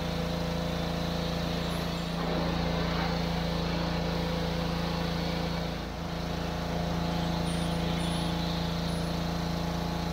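Pressure washer running steadily, its high-pressure jet spraying water onto a compact tractor's bodywork; the sound dips briefly about six seconds in.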